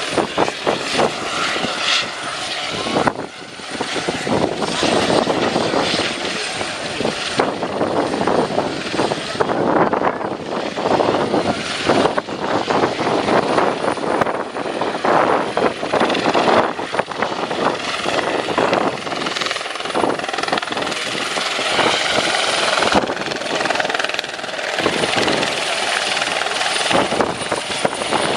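Airbus Helicopters H120 Colibri in flight: the main rotor's rapid blade chop over its turbine, with a thin high whine above it. The level swells and eases as it manoeuvres.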